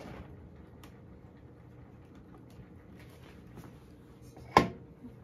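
A single sharp clack near the end with a brief ring, over faint scattered small clicks and quiet room noise.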